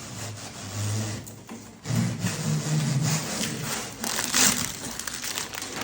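Rubbing, scraping and rustling of packaging being pulled and handled on a newly unboxed dryer, with scattered small knocks.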